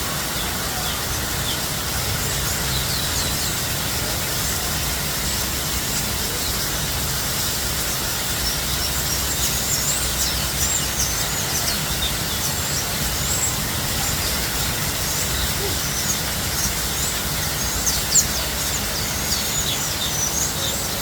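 Many small birds chirping in short, high, quick calls, thickest in the second half, over a steady rushing background noise.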